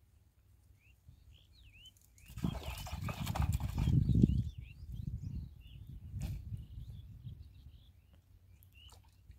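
A hooked fish splashing and thrashing at the surface of a pond, loud for about two seconds starting some two seconds in, followed by irregular dull thumps and rustling. Small birds chirp now and then.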